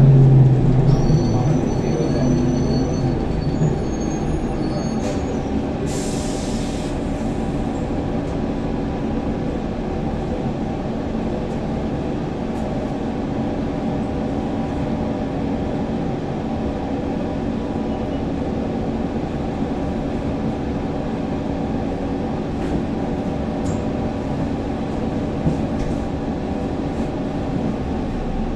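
Steady mechanical rumble of a running vehicle, with several steady humming tones. A louder low hum fades away in the first second or two.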